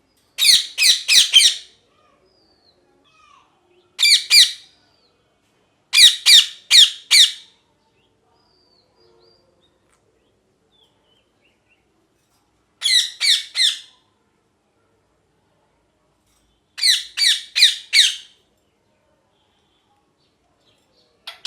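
Ringneck parrot giving loud, harsh squawking calls in quick bursts of two to four notes. Five such bursts come a few seconds apart, with a short final call near the end.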